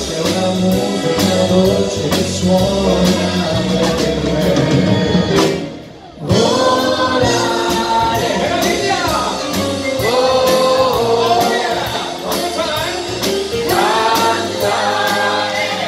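Live band and vocal group performing a song: singers over drums, bass and keyboards. The music drops out briefly about six seconds in, then the singing comes back in.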